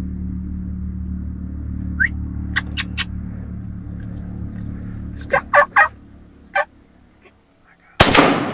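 Young wild turkeys (jakes) calling in short separate bursts over a low steady hum that fades out, then a single loud shotgun shot near the end.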